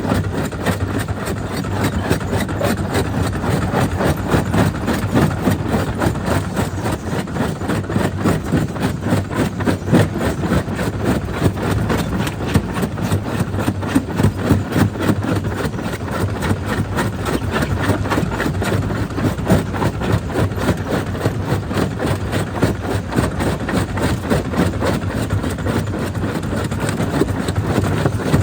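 Jaw crusher running under load, stone cracking and grinding between the jaws in a dense, irregular clatter over a steady low machine hum.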